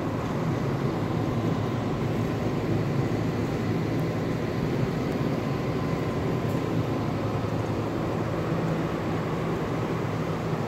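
Steady mechanical hum of ventilation fans, unchanging throughout, with a faint high whine held on two steady pitches.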